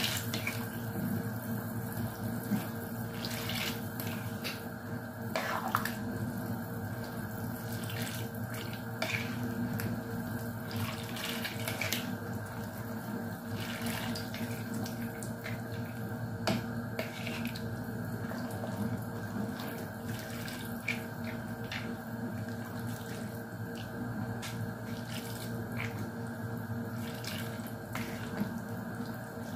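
A ladle stirring a full pot of creamy macaroni soup: the liquid sloshes, with scattered light clicks of the ladle against the aluminium pot, over a steady hum.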